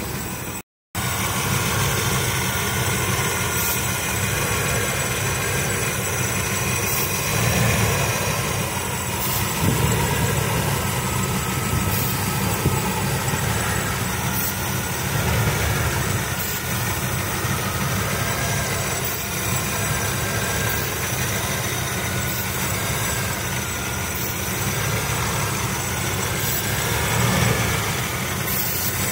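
Carbureted engine idling steadily, with small swells in its note, while it is checked for a vacuum leak at the carburetor base.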